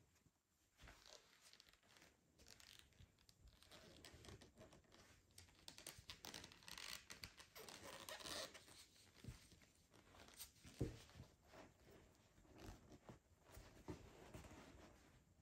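Faint rustling and scraping of thick T-shirt yarn being drawn through crocheted stitches with a large crochet hook, in irregular pulls, with a sharper click about eleven seconds in.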